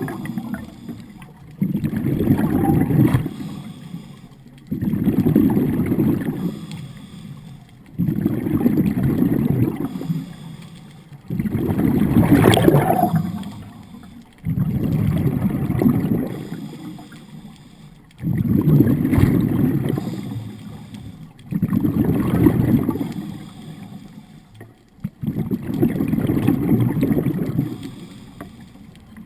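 Scuba breathing heard underwater: the diver's regulator exhales a rush of bubbles about every three and a half seconds, eight breaths in all, each starting suddenly and fading away, with quieter gaps for inhaling between.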